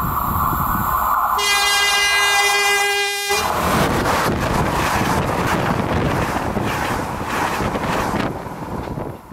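Siemens Hellas Sprinter electric locomotive on an InterCity train sounds one steady horn note for about two seconds as it approaches. The train then rushes past close by, its wheels clattering over the rails, easing off just before the end.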